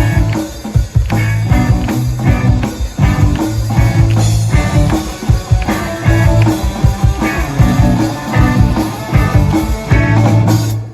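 Live rock band of electric guitar, bass guitar and drum kit playing an instrumental passage of a pop-rock song, with steady drum beats under held bass notes and guitar chords.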